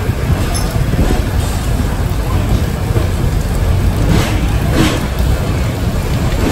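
Passenger train rolling slowly into a station, heard from an open coach doorway: a steady low rumble and rush of noise, with two faint clicks about four and five seconds in.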